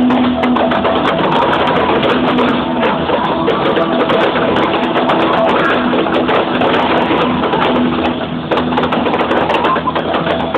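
Loud music with held notes and a guitar-band sound, running without a break.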